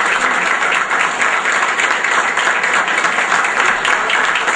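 A small group applauding: many hands clapping steadily.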